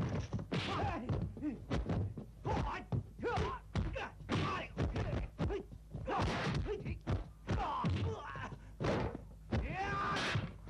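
Martial-arts film fight soundtrack: a rapid string of dubbed punch and kick impact effects, mixed with the fighters' shouts and grunts, over a steady low hum.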